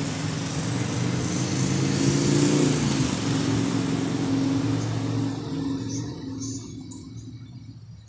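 City road traffic: a motor vehicle's engine passes close, loudest about two to three seconds in, then fades away.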